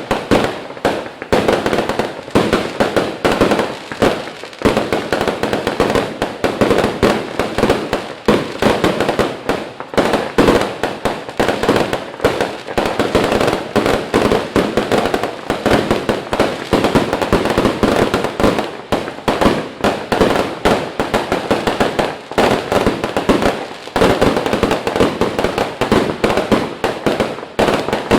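Fireworks display going off in a loud, unbroken barrage of bangs and pops, many a second without a pause.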